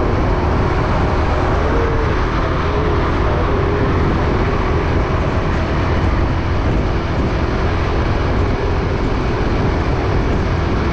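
Steady road and wind noise from a vehicle driving at speed on a highway.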